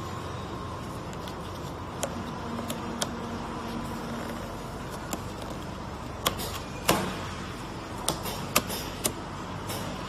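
A cardboard dishwasher-tablet carton being handled, its tuck flap pulled open and pushed shut, giving irregular sharp clicks and taps, the loudest about two-thirds of the way through. Beneath them runs the steady hum of packaging machinery.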